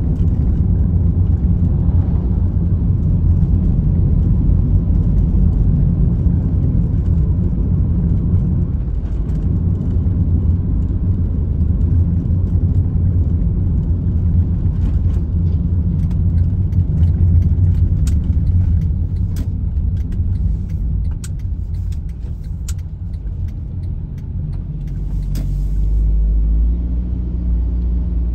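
Steady low rumble of road and engine noise heard inside a moving car. A few light clicks come in the second half, and a low engine tone rises near the end.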